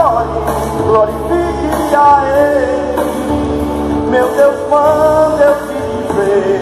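A man singing a gospel song into a microphone, amplified over instrumental backing, with long held and gliding notes.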